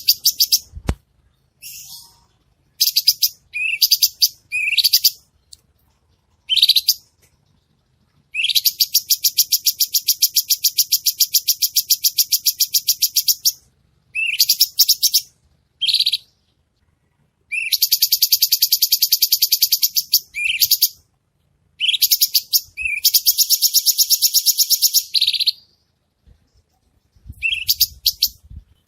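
Cucak cungkok songbird singing loud, high-pitched phrases and long trains of rapid, sharp repeated notes (the 'tembakan' shots), each train lasting several seconds, with short pauses between them.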